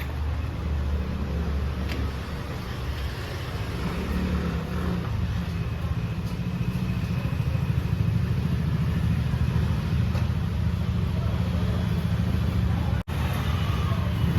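Small scooter engine idling steadily, running a little harder partway through.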